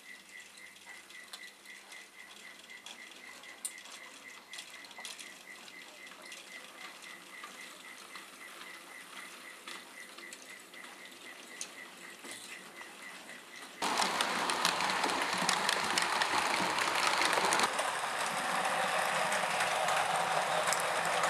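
Model railway train running on its track: at first faint, with light clicks and a pulsing high tick several times a second, then, from about two-thirds in, much louder as coaches roll close by, their wheels rattling and rumbling on the rails.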